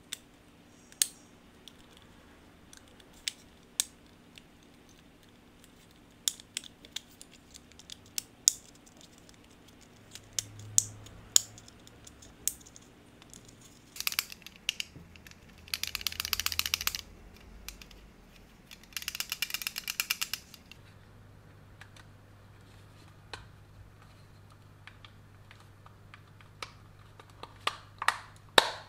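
Sharp little clicks and snaps of the computer mouse's plastic shell and parts being handled and fitted together. Around the middle come two runs of rapid clicking, each a few seconds long.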